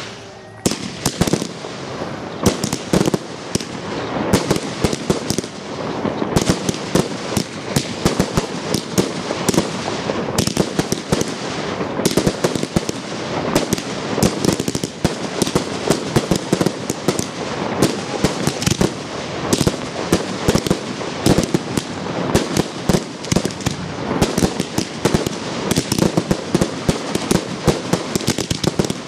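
Large professional fireworks display launching from the ground at close range: a dense, continuous barrage of launch thumps and sharp bangs, several a second, with no let-up.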